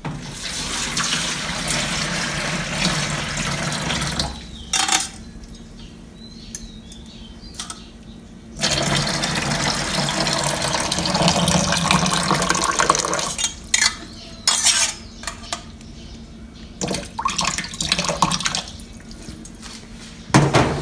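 Soaking water pouring out of a stainless steel pot of softened rice noodles into a plastic basin in a sink, in two long pours: one in the first four seconds, one from about 9 to 13 seconds. Metal clinks and knocks from the pot being handled come between and after the pours.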